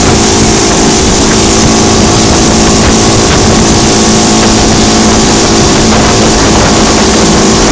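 Boat's outboard motor running steadily at speed while towing, with an even engine tone and the rush of wind and churning wake.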